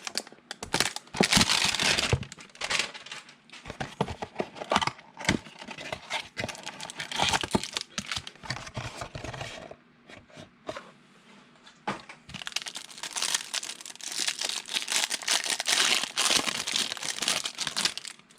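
Packaging of a Panini Contenders football card hanger box being torn open and crinkled. It comes in two long stretches, with a short lull about ten seconds in.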